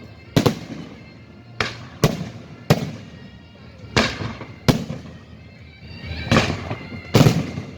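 Fireworks bursting: about eight loud bangs at uneven intervals of roughly half a second to a second and a half, each ringing on briefly, with music in the background.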